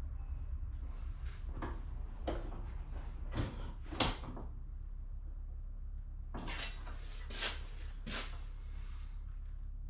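Irregular metallic clanks and clatters of steel pieces and tools being handled on a workbench, the sharpest knock about four seconds in, over a steady low hum.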